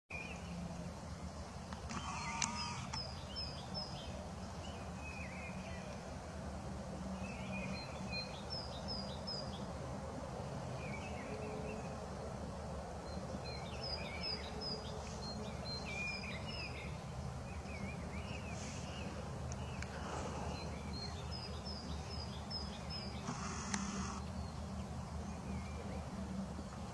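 Small birds calling, with short runs of about four high, falling chirps repeated every few seconds and some lower warbling notes, over a steady low background rumble. A brief louder sound comes about two seconds in and again near the end.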